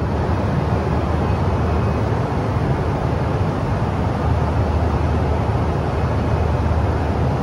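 Steady cabin noise of a Boeing 777-200 in flight: an even rushing noise of engines and airflow, heaviest in the low bass, holding at one level.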